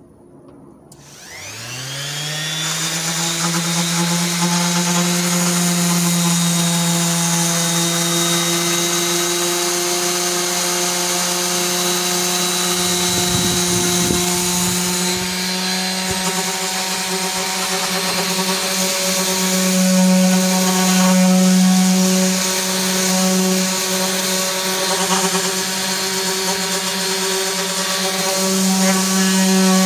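Bosch random orbit sander switched on about a second in, its motor whine rising in pitch as it spins up, then running steadily while sanding the edges of a wooden table top. Its pitch steps up slightly partway through and it grows a little louder now and then.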